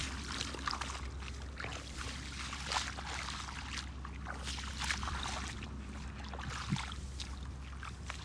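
Bare feet squelching and splashing through shallow muddy water and grass, as irregular wet splashes over a steady low hum.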